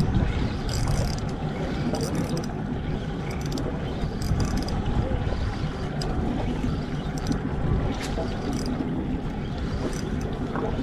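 Steady low rumble of wind and sea water around a boat, with brief high hissing sounds now and then.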